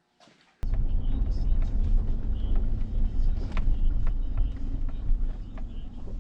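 Cabin road and engine noise of a moving 2009 Chevy Tahoe: a steady low rumble that starts abruptly about half a second in.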